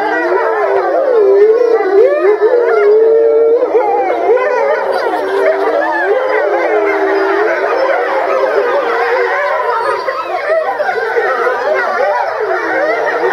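A pack of European gray wolves howling together in chorus, many overlapping voices sliding up and down in pitch.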